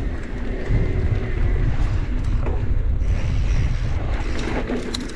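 Wind buffeting the camera microphone while riding a mountain bike down a dirt trail, with tyres rumbling over the ground and a few sharp rattles of the bike near the end.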